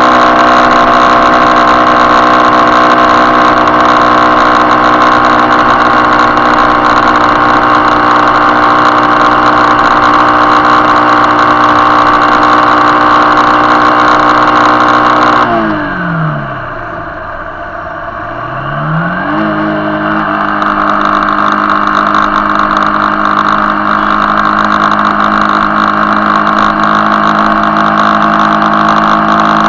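Motorcycle engine running steadily at cruising speed. About halfway through, the revs drop as the throttle is rolled off and the note falls and quietens for a few seconds. Then the revs climb again and the engine settles back into a steady note.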